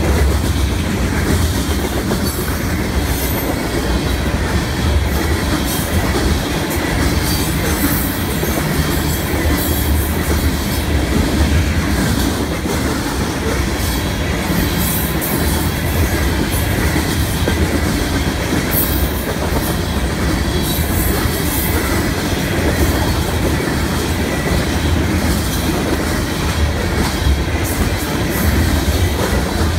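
Covered hopper cars of a freight train rolling past: a steady, loud rumble and clatter of steel wheels on the rails.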